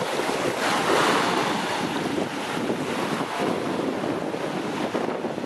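Gentle surf washing onto a sandy beach, swelling about a second in, with wind rumbling on the microphone.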